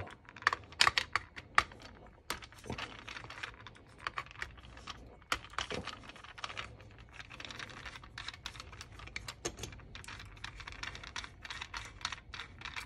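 Many small, irregular clicks and taps as a hand screwdriver turns screws out of a metal carburetor body (Autolite 2100), with small metal parts clinking.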